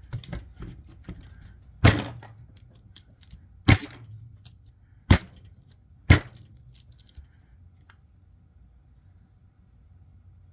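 Damascus-steel bushcraft knife point stabbed hard into wood four times, each a sharp strike with smaller clicks and taps between: a tip retention test.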